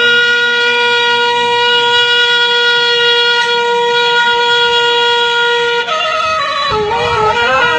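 A man's voice holding one long chanted note for about six seconds, then breaking into a wavering sung line of Bedouin chanted poetry.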